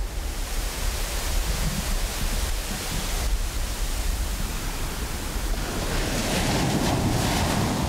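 Ocean surf washing up the beach: a steady rush of breaking waves and foam, growing fuller and a little louder in the last couple of seconds as a wave runs in.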